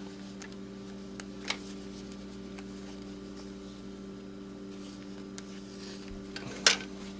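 A few light clicks and taps from the glass LCD screen layers being handled and wiped with a cloth, the sharpest near the end, over a steady low hum.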